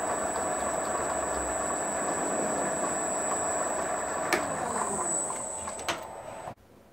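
Small metal lathe running steadily with a high whine while turning down the end of a small steel part. About four seconds in there is a click and the lathe winds down, its pitch falling, before the sound drops away abruptly.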